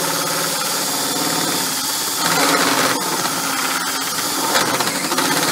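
Cordless drill running under load with a 2-inch hole saw cutting into a stucco exterior wall, a steady motor whine with grinding. The cut gets louder for about a second a couple of seconds in and turns to a rapid rattle near the end.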